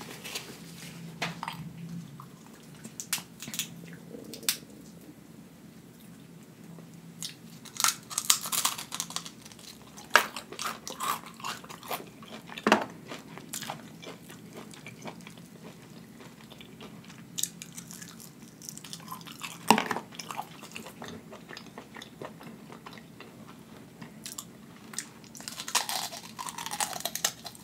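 Close-miked chewing and crunching of Chinese takeout food, including crispy fried wontons: irregular crunches with quieter chewing between them. The crunching is busiest about eight to twelve seconds in and again near the end.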